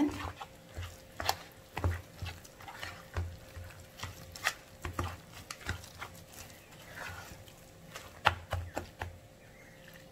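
A white plastic spoon stirring thick, lumpy corn fritter batter in a plastic bowl, with irregular knocks and wet scraping as it works the mixture.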